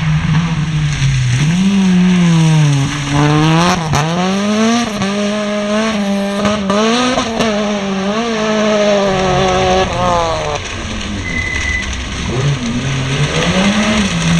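Competition car engines revving hard through a slalom course. The pitch climbs and drops again and again with each throttle lift and gear change.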